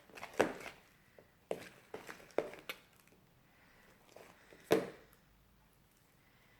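Slime being stirred with activator in a plastic container: a string of short knocks and sticky squelches, loudest about half a second in and again near five seconds.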